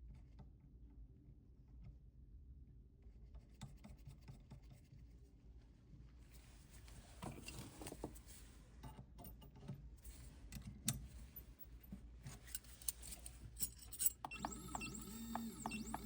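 Faint clicks and light scraping of hand work on a small desktop CNC mill, then about fourteen seconds in the machine's motors start to whine, with several steady tones and quick rising-and-falling sweeps as the axes move.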